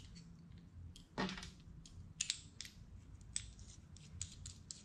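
Faint, scattered clicks and ticks of small metal parts being handled as a bearing driver disc is bolted onto its driver handle.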